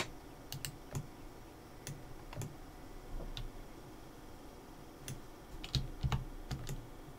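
Computer keyboard keys clicking: about a dozen separate, irregular key presses, the shortcut keys of 3D modelling work, with a quicker run of clicks about six seconds in.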